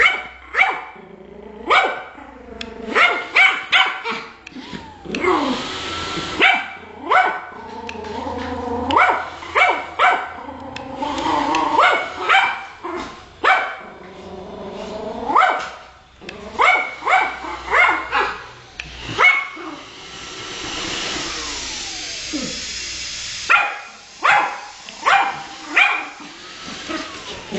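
A Yorkshire terrier barking over and over in sharp, quick yaps, with some wavering growls and whines between the barks. Twice there is a few seconds of steady rushing noise, the longer one near the end.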